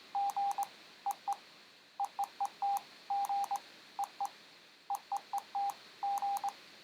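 Android Morse code app beeping the SOS signal over and over from a phone speaker: a single steady tone in groups of short and long beeps, three dots, three dashes, three dots, repeated.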